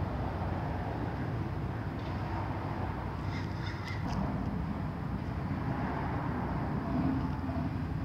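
Steady low rumbling background noise with a few faint, light clicks about three to four seconds in.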